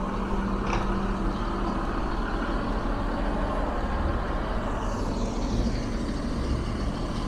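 A heavy vehicle's engine running with a steady low rumble, with a short metallic clink under a second in.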